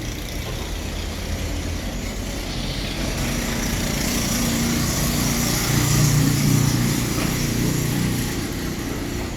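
A motor vehicle's engine passing, growing louder to a peak about six seconds in and then fading away.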